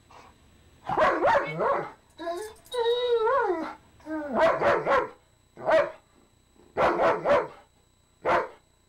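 German Shepherd "talking": a string of short bark-like yowls, with one longer wavering moan about two and a half seconds in.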